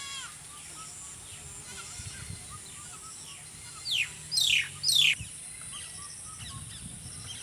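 Birds calling outdoors: three loud, quick calls that sweep down in pitch come about four seconds in, with fainter chirps scattered around them.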